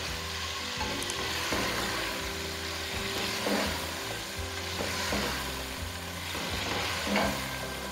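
Chopped vegetables (potato, carrot, capsicum) sizzling as they fry in hot oil in a pot. A spatula stirs them through the oil, with a soft stroke about once a second.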